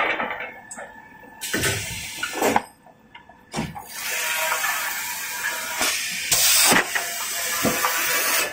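Kitchen towel paper rewinding machine running: a steady hissing rush of noise that drops out briefly about a third of the way in, with a few short knocks.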